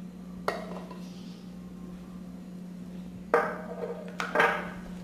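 Kitchenware knocking against a small nonstick saucepan as a cup of sugar is tipped in: a light tap about half a second in, then two louder ringing clinks near the end. A steady low hum runs underneath.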